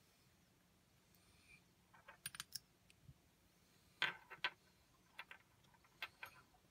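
Light clicks and small taps from hands handling wired earphones and their cable among small glass bottles, in short clusters, the loudest about four seconds in.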